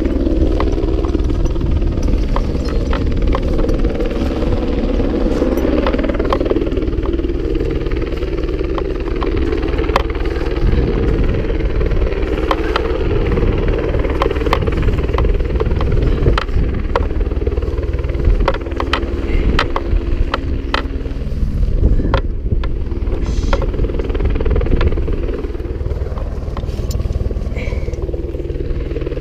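AS350 helicopter running close by: the turbine whine and rotor drone make a loud, steady hum. Scattered clicks and knocks come from the slings and the metal frame being handled.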